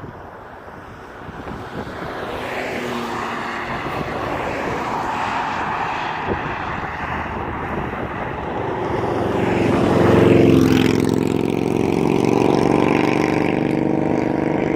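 USAF Thunderbirds F-16 jets flying past: a jet roar that builds from a couple of seconds in, is loudest about ten seconds in with engine tones sweeping through, and stays loud afterwards.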